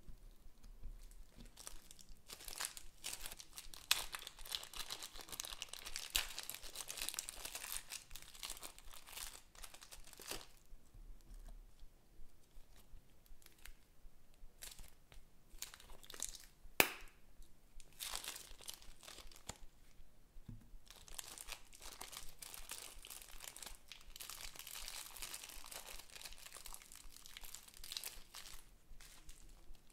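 Close-up crackling of bead-filled foam slime being handled, then crinkling of a thin plastic zip-lock bag as green slime is squeezed out of it. A single sharp click comes about halfway through.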